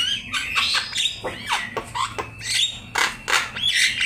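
Javan myna singing in full voice: a rapid string of varied squawks, sharp clicks and short gliding whistles, several notes a second.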